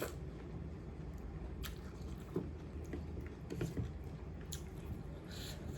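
A person chewing and biting food close to the microphone, with a handful of short, sharp clicks scattered through it.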